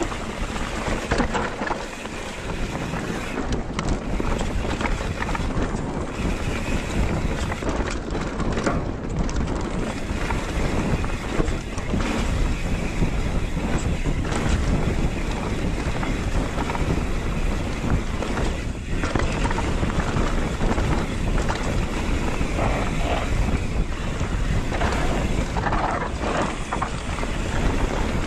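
Wind buffeting the microphone and mountain bike tyres rolling fast over a dirt singletrack, with scattered knocks and rattles from the bike.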